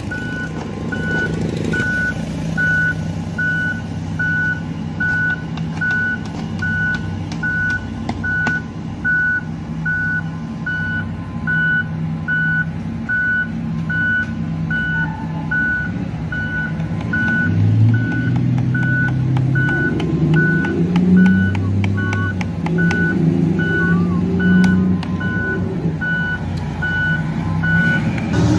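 Reversing alarm of a giant mining haul truck beeping steadily at one pitch, about one and a half beeps a second, over the low drone of the truck's diesel engine, which revs up several times in the second half.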